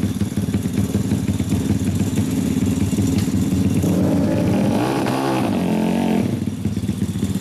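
Custom Honda Monkey's single-cylinder four-stroke engine running through an aftermarket silencer, idling, then revved up and back down about four seconds in, settling back to idle around six seconds.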